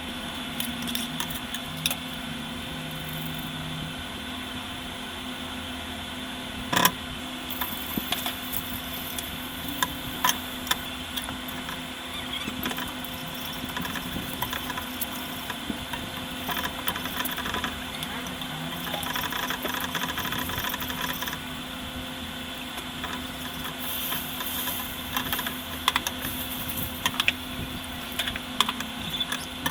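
A steady machine hum, such as a kitchen extractor fan, with frequent light clicks and clinks of kitchen work. One sharper knock comes about seven seconds in.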